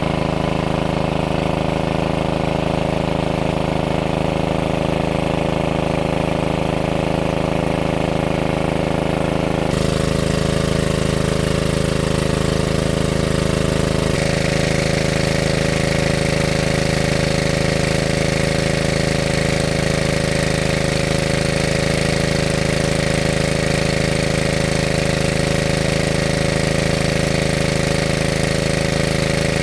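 A small engine running steadily at a constant speed. The sound changes abruptly about ten seconds in and again about four seconds later.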